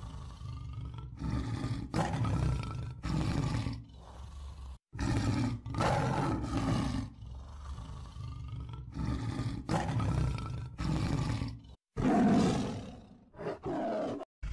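Tyrannosaurus rex roar sound effects: a string of deep, growling roars one after another, broken by a few sudden cuts to silence.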